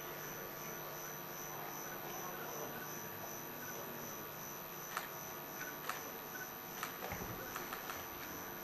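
Steady mains hum on an open microphone in a quiet hall. A few faint clicks and knocks come in from about halfway through.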